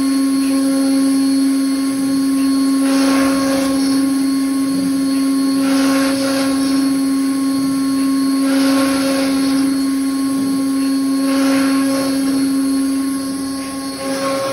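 CNC router spindle running with a steady whine while the bit cuts into a sheet, with a rasping cutting noise that swells for about a second roughly every three seconds as the tool works through the material.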